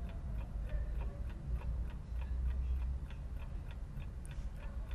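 Faint, steady ticking, about three ticks a second, over a low hum.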